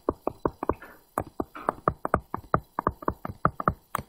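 Stylus tip tapping and clicking on a tablet screen while handwriting: a quick, uneven run of short clicks, about five a second.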